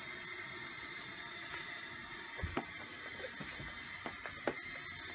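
Steady hiss with a few short clicks, two about two and a half seconds in and several more a second and a half later: a caracal chewing a piece of food.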